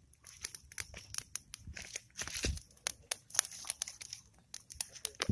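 Dry twigs and leaves snapping and crinkling as sticks of firewood are handled and pushed into a small open cooking fire, with irregular sharp clicks and a soft thump about two and a half seconds in.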